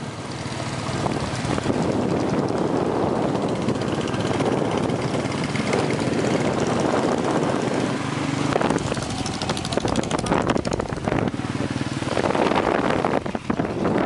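Motorcycle engine running steadily under way, mixed with wind rushing over the microphone.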